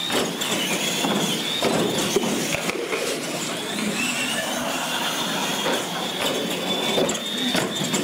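Electric R/C monster trucks racing on concrete: a high motor-and-gear whine that wavers in pitch with the throttle, over the rumble of the big tyres and a scatter of knocks and clatter from the trucks bouncing off the ramps and the floor.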